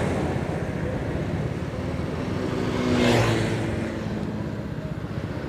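Road traffic passing close by, with one vehicle swelling up and fading away about three seconds in, over a low steady engine hum.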